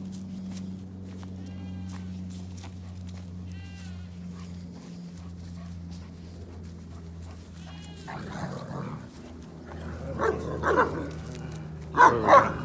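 Farm livestock bleating, two loud wavering calls near the end, over a steady low hum, with a few faint high chirps earlier.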